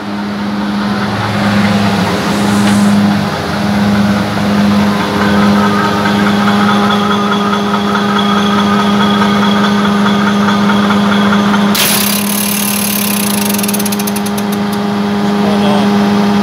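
Claas 840 forage harvester running, its engine and driveline giving a steady hum while the feed rollers turn. About twelve seconds in, a hissing, rattling high noise suddenly joins.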